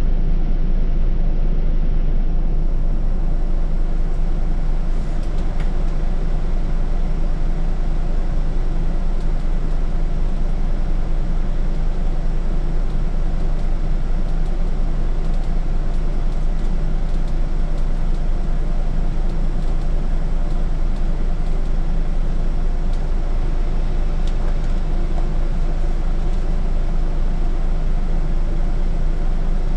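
Scania city bus engine running with a steady low hum, heard from inside the bus.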